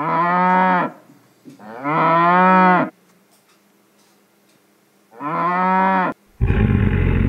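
A cow mooing three times, each call about a second long with a gap between, followed near the end by a rougher, noisier animal call that is heavier in the low end.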